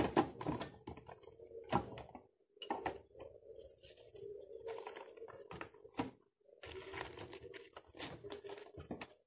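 Stationery being handled in a desk drawer: rolls of tape, pens and small items knocking and clicking irregularly as they are picked up and set down, over a faint steady hum.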